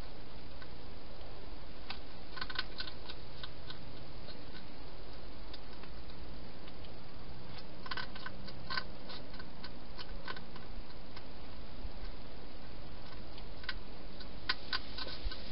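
Wild hedgehog eating from a bowl: scattered clusters of sharp clicks and crunches, bunched about 2 seconds in, around 8 to 10 seconds in, and near the end.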